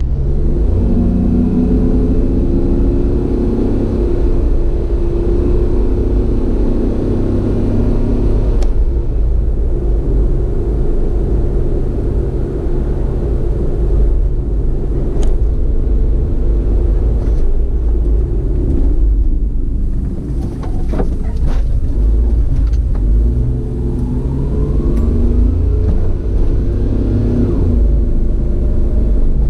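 A road vehicle driving, its engine running under a heavy, steady low rumble of road and wind noise. The engine note shifts up and down, and rises over the last few seconds as it speeds up, with a few isolated clicks along the way.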